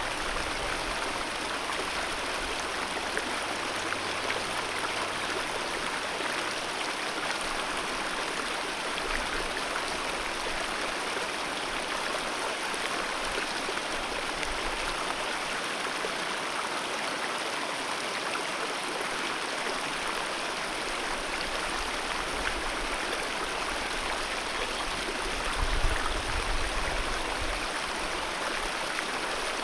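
Alpine mountain river rushing steadily, a dense, even wash of water sound. About three-quarters of the way through, a brief low rumble swells up under the water.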